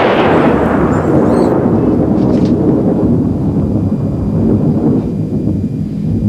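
Thunder sound effect: a sudden crack followed by a long rolling rumble that slowly fades.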